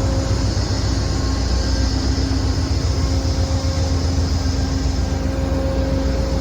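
Amtrak passenger train's diesel locomotive running: a steady, loud low rumble with a faint steady hum over it.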